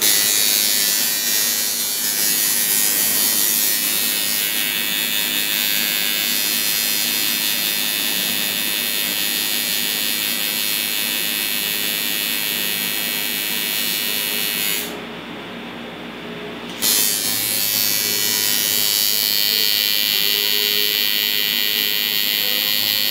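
Coil tattoo machine buzzing steadily while working ink into the skin. The buzz drops out for about two seconds about two-thirds of the way through, then starts again.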